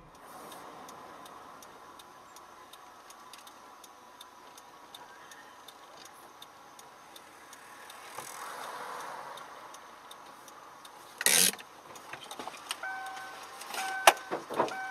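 Car cabin sounds picked up by a dash camera: faint engine and road noise with a steady fast ticking. A single loud thump comes about eleven seconds in. From about thirteen seconds an electronic warning chime beeps on and off in two pitches, with a few sharp clicks.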